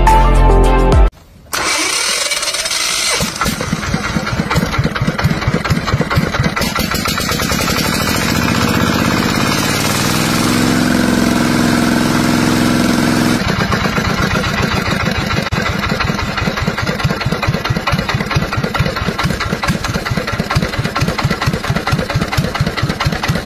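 Background music cuts off about a second in. Then an old, rusty small engine, hooked to a battery with jumper clamps, starts up and runs with a rapid, even firing beat, the note shifting for a few seconds around the middle.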